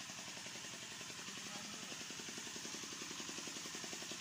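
A small engine running steadily with a rapid, even pulse, under a constant high hiss.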